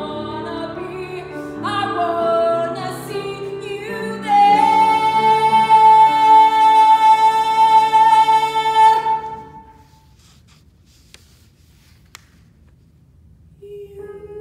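A woman singing a musical-theatre ballad with grand piano accompaniment. About four seconds in she holds one long high note for some five seconds, then voice and piano stop for a pause of a few seconds before the piano comes back in near the end.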